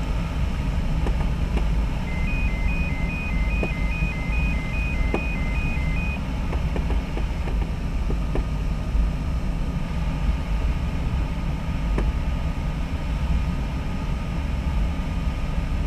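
Steady rush of air past the canopy inside a Duo Discus glider cockpit in flight. A short run of high electronic beeps at two alternating pitches, about two to three a second, sounds for some four seconds near the start, with a few faint clicks.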